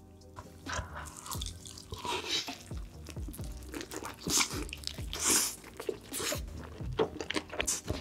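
Close-miked mukbang eating: a sauce-coated chicken piece is dipped in thick cheese sauce and taken in one big bite, with wet, sticky crunching and chewing that comes in loud bursts. Lo-fi background music with a steady beat runs underneath.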